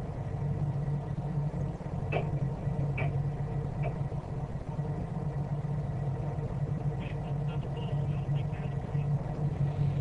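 The 1974 Gulfstar 44 motor sailor's inboard engine running steadily under way, a low even hum. A few faint, short high sounds come over it now and then.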